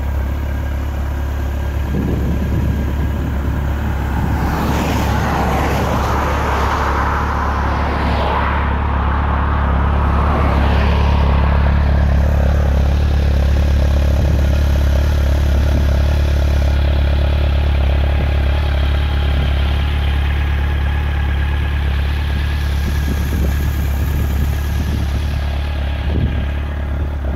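Honda CB1300's 1284 cc inline-four engine idling steadily in neutral, a little louder through the middle.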